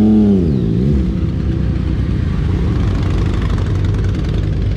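Motorcycle engines running at low speed, with one engine's throttle blipped near the start: the pitch rises and falls, then briefly rises and falls again within about a second. A steady low engine sound follows.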